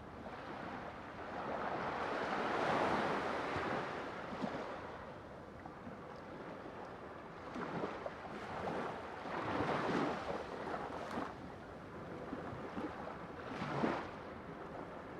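Sea waves washing in and drawing back, in uneven swells: a long surge a couple of seconds in, then shorter washes later, one last sharp one near the end.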